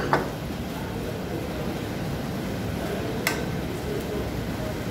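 Steady noise of a commercial kitchen's gas burner and ventilation under a pan of stir-fry, with a metal ladle clinking against the pan twice at the start and once about three seconds in.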